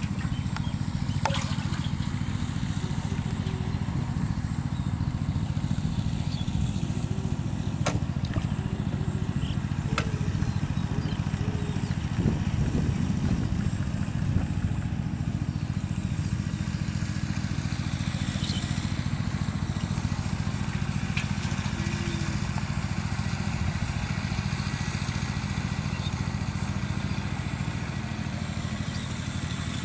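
A small engine running steadily, a low, even drone.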